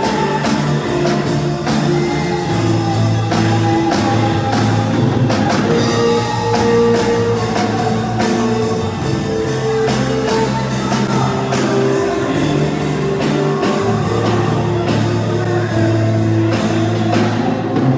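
A worship band playing a rock-style praise song, with drum kit, guitar and bass.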